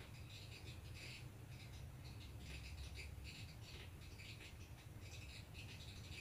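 Near silence: faint room tone with a low hum and faint high-pitched chirps now and then.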